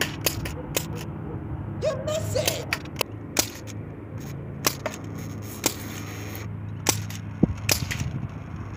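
Crosman 1077 semi-automatic CO2 air rifle firing a string of shots, a dozen or so sharp cracks at uneven intervals. The repaired CO2 valve is holding gas and the rifle is cycling. A low steady hum runs underneath.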